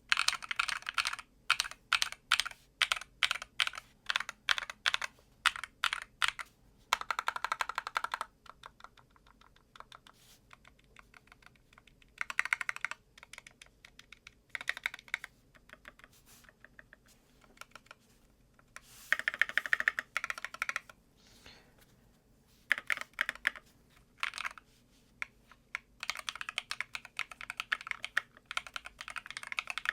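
MCHOSE ACE60 magnetic-switch keyboard, with Jade switches on a steel plate, being typed on and heard from about head height. It starts with single keystrokes about two a second, then comes in bursts of fast typing with quieter pauses between, ending in a long run of rapid typing.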